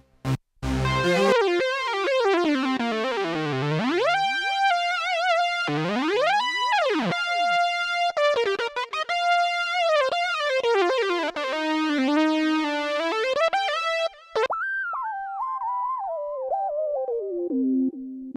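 Korg RK-100S 2 keytar playing a synth lead: a single melodic line with sweeping pitch glides and wavering vibrato, and a quick swoop up and back down about seven seconds in.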